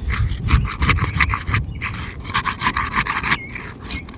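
Thin pry bar scraping under asphalt shingles in quick repeated strokes, about four or five a second, cutting through the tar sealant line to unseal them. The strokes stop a little over three seconds in.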